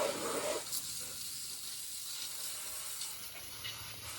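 Water spraying onto a lawnmower as it is washed down, a steady hiss.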